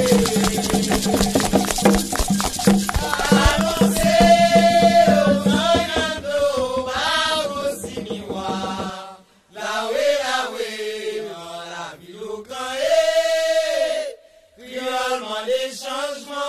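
Haitian Vodou chant for the lwa: sung voices over a fast shaken rattle. About nine seconds in the rattle stops and the singing goes on unaccompanied, broken twice by brief pauses.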